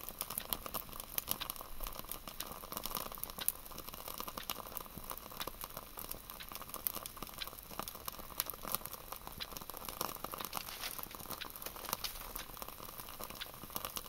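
Fire Dragon solid fuel block burning in a Swiss army stove under a vessel of water: a steady faint hiss with dense, irregular crackling and ticking, as the water heats close to the boil.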